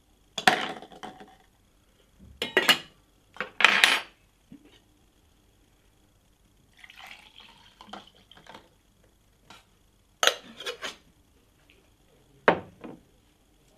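Ice cubes picked from a metal ice bucket with tongs and dropped into a stainless-steel cocktail shaker: three clattering clinks within the first four seconds. Several more metallic clinks and knocks follow near the end.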